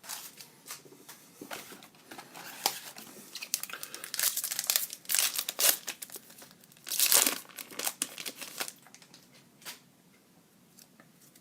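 Crinkly plastic wrapping of hockey cards being torn open and crumpled, in irregular crackling bursts that are loudest about four and seven seconds in, then stop.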